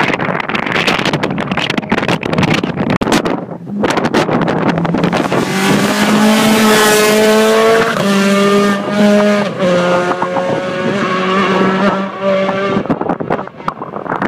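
Rally car engine coming up the road and passing at speed, its note rising and then dropping briefly at gear changes about halfway through and again a second or so later. Gusty wind buffets the microphone at the start and near the end.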